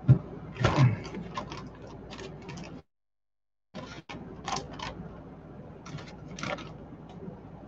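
Zip-top plastic bag crinkling and rustling as it is handled and tipped over a bowl, with a couple of louder knocks near the start. The sound cuts out completely for about a second midway.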